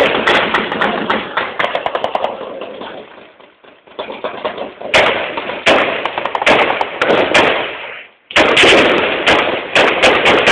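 Gunfire in a heavily overloaded, distorted recording: a dense run of sharp cracks, several a second. It eases off about three and a half seconds in, cuts out briefly just after eight seconds and comes back loud.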